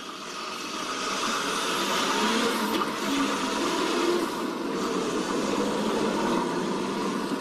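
A road vehicle driving, heard as a steady rushing road noise with a faint engine note underneath, swelling up over the first second or so.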